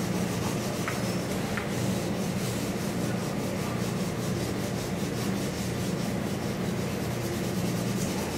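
A drawing tool scratching rapid repeated shading strokes across paper on a drawing board, with a steady low hum underneath.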